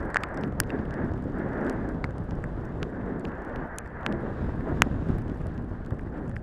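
Wind rushing past a helmet camera and the rattle of a downhill mountain bike descending a rough dirt trail, with several sharp clicks and knocks as it hits stones and bumps.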